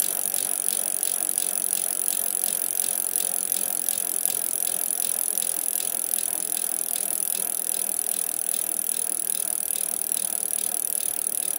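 Rapid, steady clicking of a BMX bike's Colony freecoaster rear hub as the wheel spins free.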